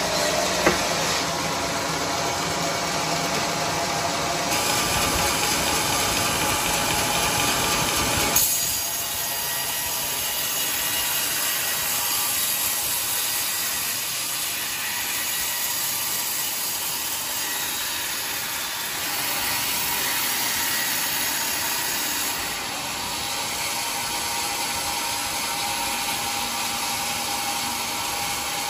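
Band sawmill running, its blade cutting lengthwise through a large teak log with a steady mechanical noise. There is one sharp knock about a second in, and the lower, heavier part of the sound drops away about eight seconds in.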